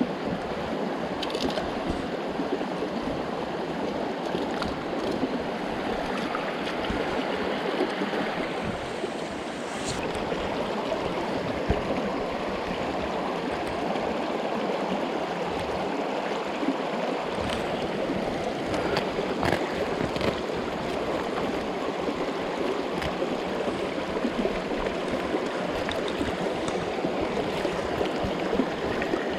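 Small mountain stream rushing steadily, with a few faint clicks.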